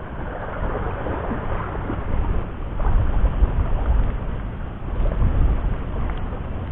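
Wind buffeting the microphone: a low, rumbling rush that rises and falls in gusts.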